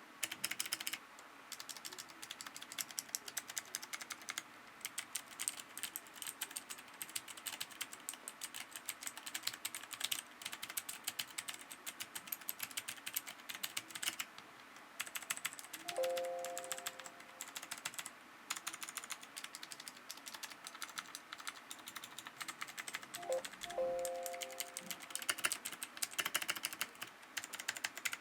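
Typing on a Royal Kludge RK71 mechanical keyboard: rapid key clicks in long runs, broken by a few short pauses.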